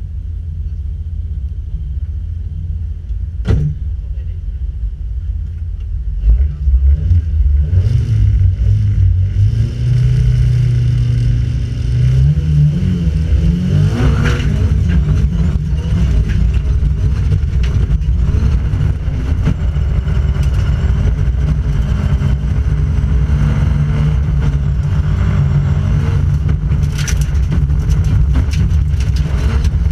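Volvo 940 rally car's engine heard from inside the cabin: idling at first, then held at high revs from about six seconds in, then pulling away and revving up and down as it accelerates hard on a gravel road.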